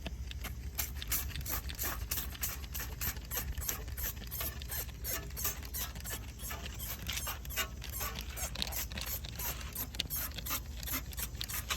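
A rapid, uneven series of short scrubbing or scraping strokes, about three to four a second, over a steady low hum, typical of brushing dirt off an engine.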